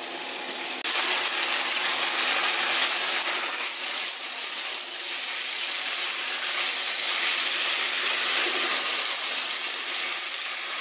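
Stir-fried pork and vegetables in gochujang sauce sizzling in a pan while a silicone spatula stirs them; the sizzle turns suddenly louder about a second in, the heat having just been raised, and then holds steady.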